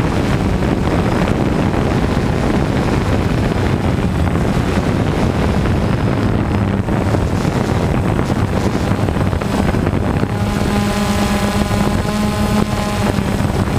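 Small quadcopter drone hovering and climbing, its propellers buzzing steadily with wind rushing across the onboard camera's microphone. For a few seconds near the end a steady higher whine joins the hum as the motors change speed.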